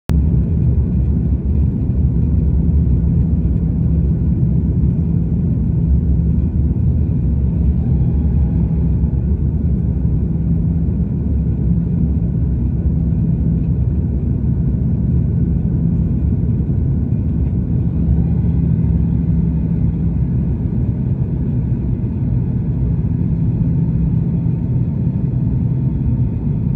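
Steady low rumble of an Airbus A330-300 airliner's GE CF6 jet engines, even and unchanging throughout, with a faint steady hum of a few tones.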